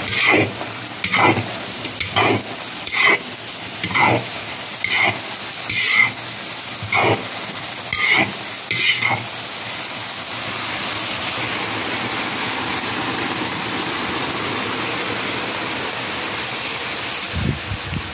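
Chopped onion, eggplant, bell pepper and garlic sizzling as they fry in hot oil in a kazan. For the first nine seconds they are stirred with regular strokes against the pot, about one a second, and after that the sizzle runs on steadily.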